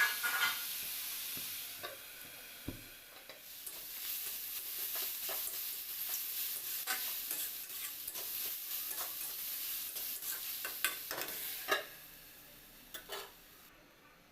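Food sizzling in hot oil in a pan while a spatula stirs and scrapes it in repeated short strokes. The sizzle quietens near the end, leaving a couple of clinks.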